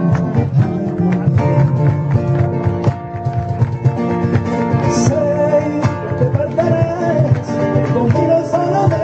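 Flamenco music: strummed guitar with sharp, rhythmic strokes, and a voice singing a wavering melody over it in the second half.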